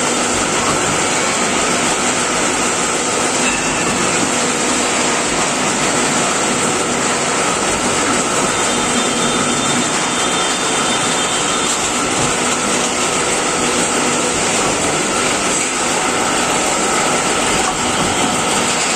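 Electro-pneumatic pipe bending machine running on a trial after an axis drive repair: a steady, loud machine noise, an even hiss with a few steady hum tones and no separate strokes.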